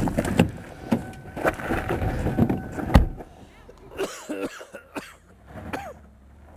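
A series of thumps and knocks, the sharpest about three seconds in, then a man coughing and groaning in pain.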